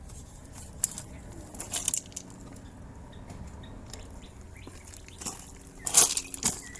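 A few scattered sharp clicks and taps from tools and wire being handled at an electrical breaker panel, the loudest about six seconds in, over a low steady hum.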